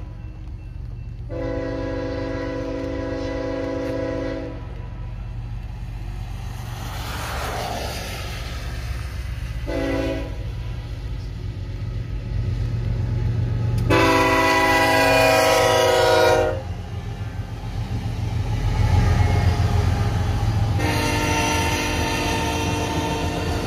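Horn of Union Pacific GE C45AH locomotive 8193 sounding a grade-crossing sequence: long blasts with one short blast about ten seconds in, the loudest long blast a few seconds later, and another long blast near the end. Under it, the steady low rumble of the freight train, with its autorack cars rolling past near the end.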